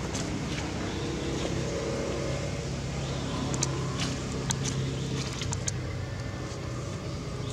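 A motor running steadily with an even low hum, like an idling vehicle engine, with a few short sharp clicks around the middle.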